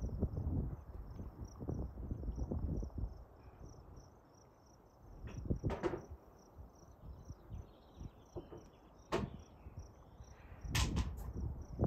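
A horse's hooves thudding on a sand arena, loudest in the first few seconds and then fading, against a steady high insect chirping several times a second. A few short sharp noises stand out near the middle and end.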